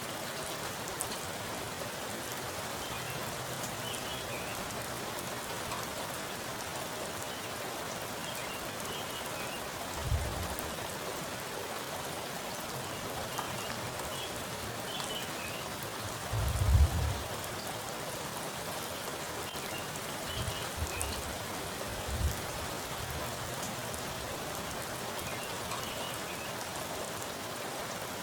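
Heavy rain falling onto a pool of standing water: a steady, dense patter of drops. A few short low thumps come through it, the loudest about two-thirds of the way in.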